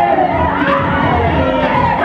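A crowd of guests cheering and shouting over music.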